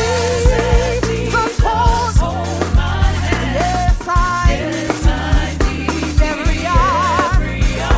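Gospel worship song: a sung vocal line with vibrato over backing voices, bass guitar, drum kit and keyboards.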